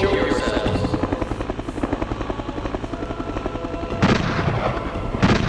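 Helicopter rotor chopping in a fast, steady pulse, with a loud sudden noise about four seconds in and another near the end.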